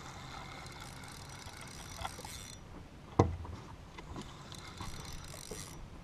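Spinning reel being cranked against a hooked fish, its gears running with a mechanical ratcheting noise, and a single sharp knock about three seconds in.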